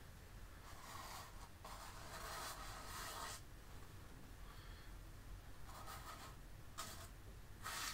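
Faint scratchy brushing of a worn fan brush, crusted with dried acrylic, stroking paint onto canvas: one longer run of strokes in the first few seconds, then a few short dabs near the end.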